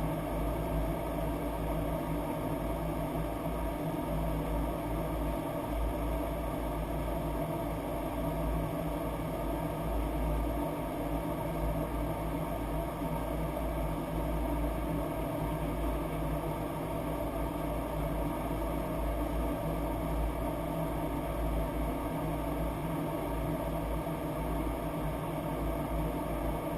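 Boeing 737-800 flight deck noise in flight: a steady hum of airflow and engines over a low rumble, with several steady tones and no change in level.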